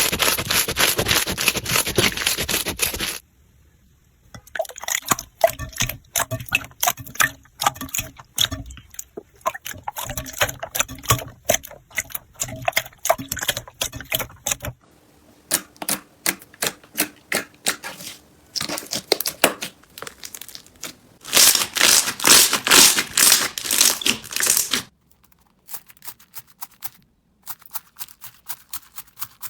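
Slime being squeezed and poked by hand, giving crackling, clicking and crunching sounds; the texture changes abruptly a few times, from dense crackling to quicker separate clicks and back.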